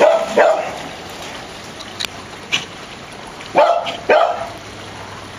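Dog barking in play: two quick barks at the start and two more about three and a half seconds in.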